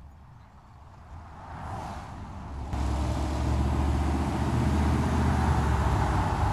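Vehicles, a pickup truck and an SUV among them, driving past on the road. The engine and tyre noise grows over the first few seconds, jumps louder about three seconds in, and then holds as a steady low engine drone as they go by.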